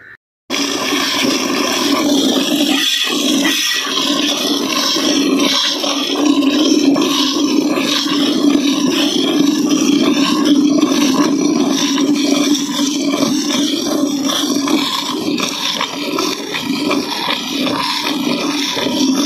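Milk being squirted by hand into a metal pot: two streams hit the metal and the frothing milk in a steady, loud rushing hiss. It starts abruptly about half a second in.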